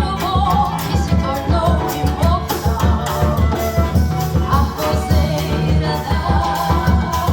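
Samba played by a small acoustic group: a woman singing the melody over guitar and hand percussion, with a steady, evenly pulsing beat.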